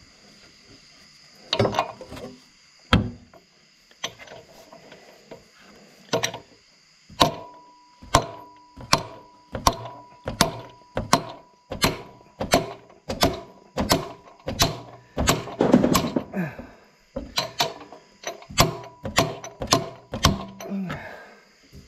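Hammer blows on a driver sleeve, seating a new armature ball bearing onto the shaft of a Lincoln Ranger 300DLX welder-generator. A few scattered knocks come first, then steady sharp taps at about two a second from about seven seconds in. The sleeve strikes the inner and outer races together, so the balls take no stress, and the bearing is not yet fully seated.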